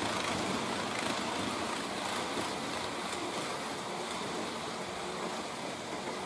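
H0-scale model freight train rolling along the track: a steady rushing rumble of wheels on rail that eases slightly as the train moves away.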